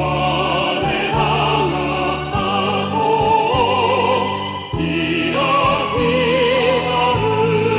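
Background music: a classical piece with operatic singing in strong vibrato over sustained low accompaniment, with a brief break in the phrase about four and a half seconds in.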